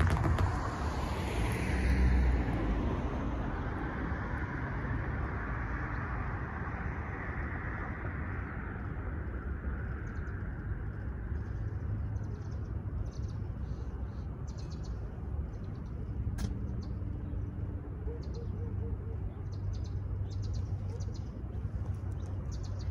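A van drives past over the crossing, its tyre and engine noise peaking about two seconds in and fading over the next several seconds. After that, a steady low rumble of distant traffic continues with birds chirping, and there is one sharp click near the middle.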